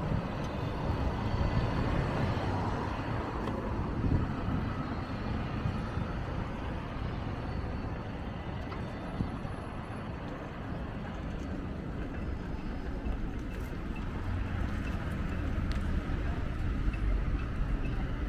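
City street traffic heard from a bicycle: cars and buses passing on a boulevard, with a steady low rumble underneath.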